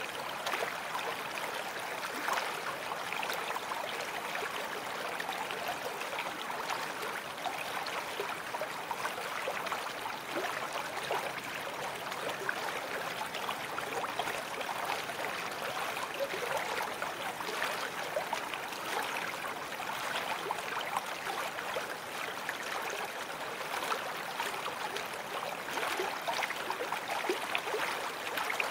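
A babbling brook: shallow running water making a steady, even sound with many small splashes.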